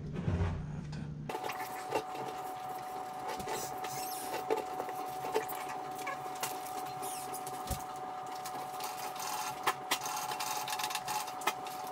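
Sped-up garage work sounds: a rapid run of clicks, taps and rattles from hand work on a vehicle fuel tank over a steady high tone, starting abruptly about a second in.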